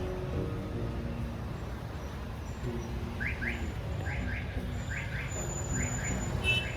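A bird chirping in quick pairs of short notes, repeated roughly once a second from about three seconds in, over a steady low background rumble.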